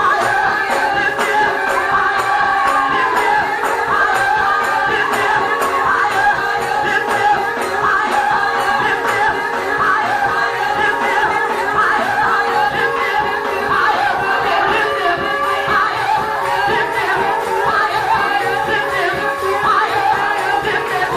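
Gospel praise music: voices singing over instrumental accompaniment at a steady level.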